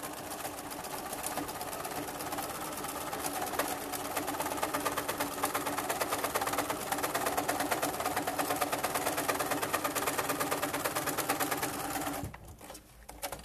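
Electric sewing machine running at a steady speed, stitching a longer-stitch topstitch close to a zipper through lining and outer fabric, with rapid, even needle strokes. It stops about a second before the end.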